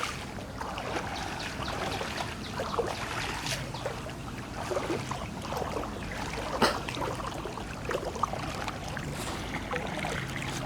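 Floodwater splashing and sloshing in irregular bursts, with a sharper splash about six and a half seconds in.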